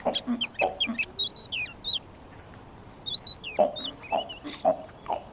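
Chickens clucking, with short high peeps mixed in, in two bursts of calls separated by a pause of about a second.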